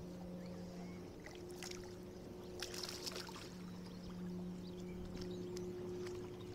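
Steady low electric hum of a bass boat's motor, fading in and out, while a fish is fought on a spinning rod. Short splashy crackles about two and a half to three seconds in, with a few scattered clicks, as the hooked fish thrashes near the surface.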